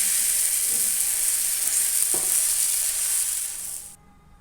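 Vegetable porota frying in hot oil in a pan: a loud, steady sizzle that cuts off sharply about four seconds in.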